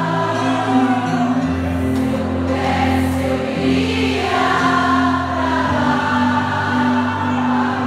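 A large choir singing a hymn with band accompaniment, in long held chords; a deep bass note comes in about a second and a half in and drops out near six seconds.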